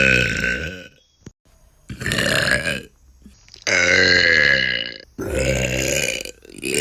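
A woman's loud, drawn-out burps, forced out one after another: one ends about a second in, then come about four more, each lasting roughly a second, the last starting near the end.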